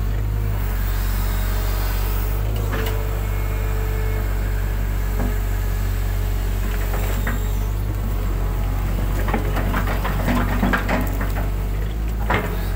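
Hitachi hydraulic excavator's diesel engine running steadily under load, heard from the cab, with a brief higher whine a few seconds in. Scattered knocks and clatters come from the bucket and linkage working mud, in a cluster late on and one sharp knock near the end.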